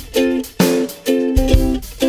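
Background music: plucked-string chords struck about twice a second, each fading quickly, over a low beat.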